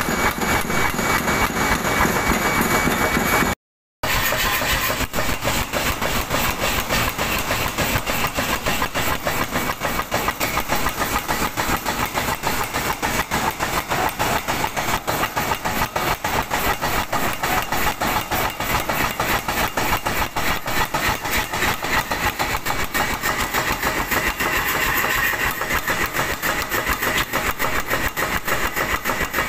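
Mechanical power hammer pounding hot high-carbon steel in a fast, even rhythm of several blows a second. A few seconds in, it cuts in after a brief steady hiss.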